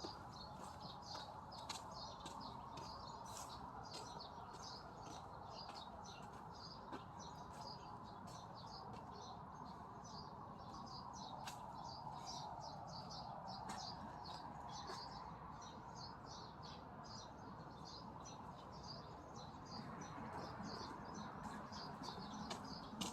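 Small birds chirping again and again over a steady low background, with a few scattered knocks.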